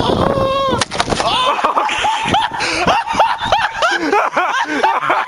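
High-pitched laughter: a run of short, rhythmic bursts, about three a second, starting about two seconds in.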